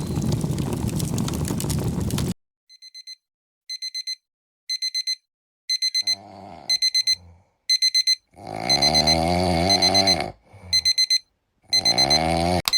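Digital alarm clock beeping in quick groups of four, about once a second, getting louder. From about six seconds in, a cat meows and yowls over it, with one long wavering yowl in the middle. It opens with a couple of seconds of dense noisy sound that cuts off abruptly.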